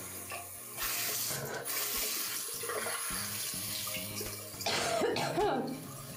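Water running from a tap into a sink, a steady rush, with a short vocal sound about five seconds in.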